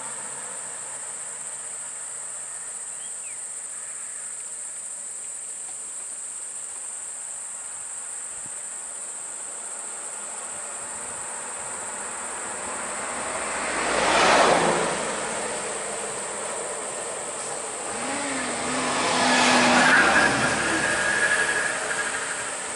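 Insects keep up a steady high-pitched drone while vehicles drive past on the road: one passes loudly about two-thirds of the way in, and a second, with an audible engine note, swells past near the end.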